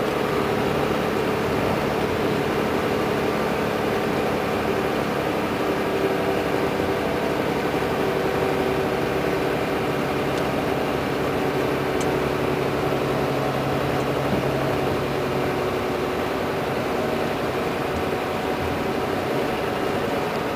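Volvo B12R coach's rear-mounted straight-six diesel engine running steadily, an even hum with a slight change in tone about three quarters of the way through.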